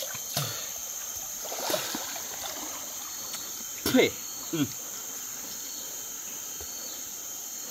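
Steady high-pitched drone of forest insects, with a few short falling vocal sounds from a man, the loudest about four seconds in.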